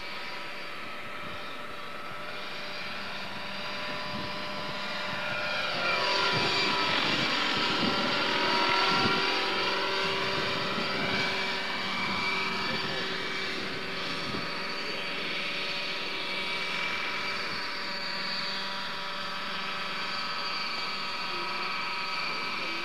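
Radio-controlled model helicopter with a small combustion engine running at flying speed, a steady high-pitched engine and rotor whine. It grows louder and slides in pitch as the helicopter passes close, about six to ten seconds in, then settles back to a steady hum.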